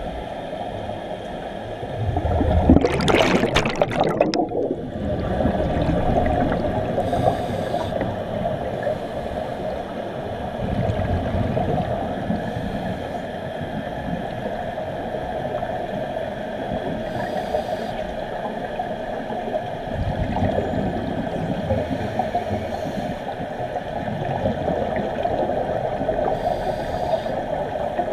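Underwater scuba ambience: a diver's exhaled bubbles gurgle from the regulator in swells every few seconds, the loudest and closest about three seconds in. A steady hum runs underneath.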